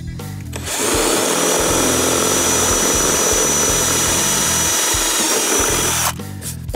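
Cordless drill running at speed, boring a hole through a hard plastic fuse-panel case, with a steady high whine. It starts about half a second in and stops about a second before the end.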